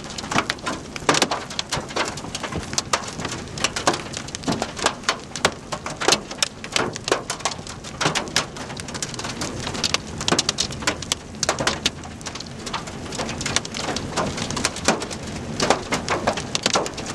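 Rain striking a moving vehicle, heard from inside the cabin as many irregular sharp ticks over a steady hiss.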